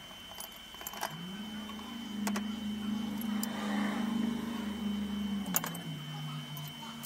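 Metal hand tools clicking against engine parts a few times, over a steady low hum that steps up in pitch about a second in and drops back after about five seconds.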